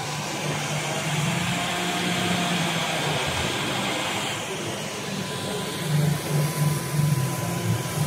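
Hoover HF9 cordless stick vacuum running as its powered brush head is pushed over a hard floor through spilled granules; a steady whooshing hiss that shifts in tone about four seconds in.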